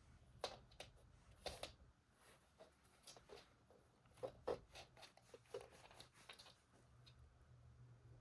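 Faint, irregular taps and scratchy rustles, a cat batting and pawing at a small toy.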